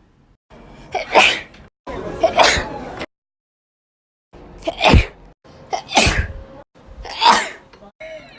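Human sneezes, about five of them one after another, each a short loud burst. Each sneeze starts and stops abruptly, with a moment of dead silence about three seconds in.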